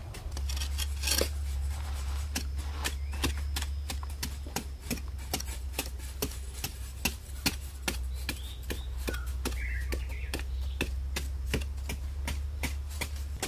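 Rapid, even tapping clicks, about four a second, over a low steady hum.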